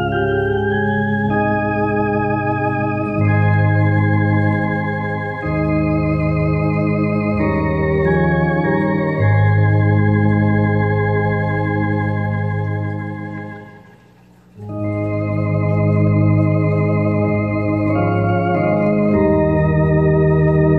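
Tokai YX 400 Organist electronic organ playing a hymn in held chords over a strong bass, the chords changing every second or two. The sound dies away for a brief pause between phrases about two-thirds of the way through, then the playing resumes.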